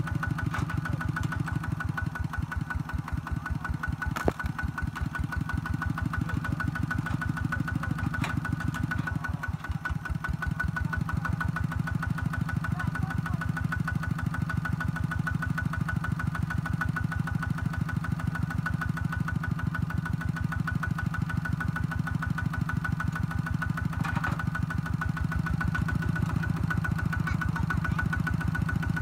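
Kubota ZT120 single-cylinder diesel engine of a kouyon (Khmer two-wheel tractor) running with an even, rapid chugging. A single sharp click about four seconds in.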